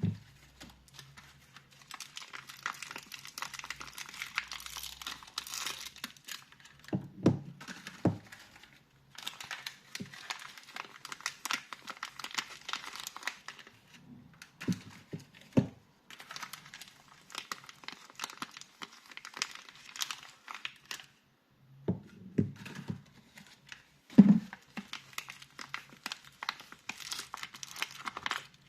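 Soap packaging being unwrapped by hand: long stretches of crinkling and tearing wrapper with short pauses between them, broken by a few low thumps, the loudest about 24 seconds in.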